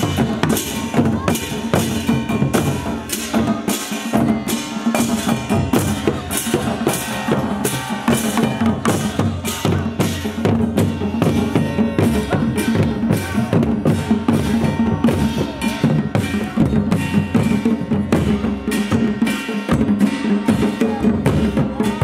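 Himachali folk music led by dhol drums, struck with a stick in a steady quick rhythm of about two to three beats a second, over a held melodic tone.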